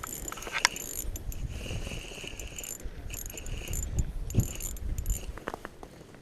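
Fishing reel being worked against a hooked fish: its gears whir and click in short spells, over a low rumble of wind.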